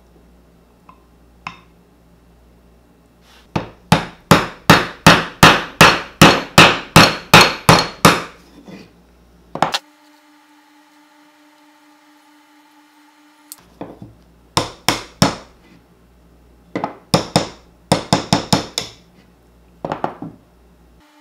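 Claw hammer tapping a steel tip into the end of a hickory handle: a run of about a dozen sharp, ringing strikes, two to three a second, then after a pause two shorter groups of strikes.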